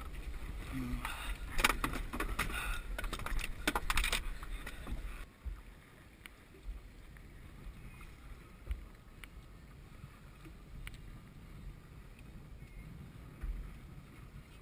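A freshly gaffed yellowtail thrashing on the boat's deck: a quick run of knocks and slaps for the first five seconds or so. Then the knocking stops suddenly, leaving faint wind and water noise with an occasional click.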